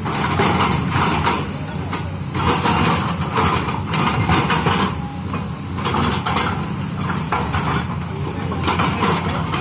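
LiuGong tracked excavator's diesel engine running steadily under load, with irregular noisy bursts about once a second as the hydraulics work the boom and bucket in loose soil.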